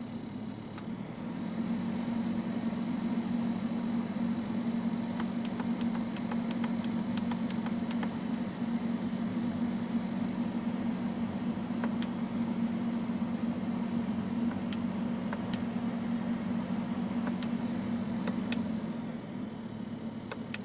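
A car making a steady low drone that comes in about a second and a half in and fades out near the end, with scattered light clicks.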